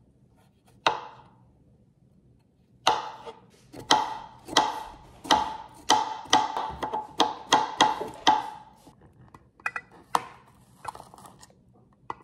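Knife slicing fresh ginger root on a cutting board: a series of sharp chops about two a second, each with a short ring, then a few lighter clicks near the end.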